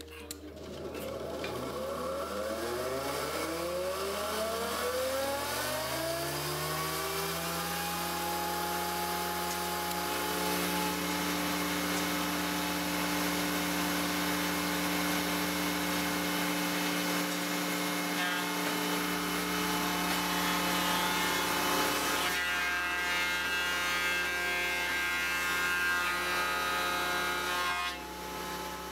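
Industrial thickness planer switched on, its motor and cutter block winding up with a rising whine over several seconds, then running steadily at full speed. The sound grows louder and rougher about two-thirds of the way through.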